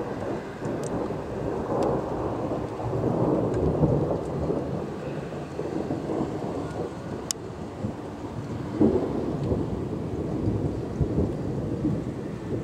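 Rolling thunder rumbling continuously, swelling a few seconds in and again about two-thirds of the way through, with a few faint sharp ticks.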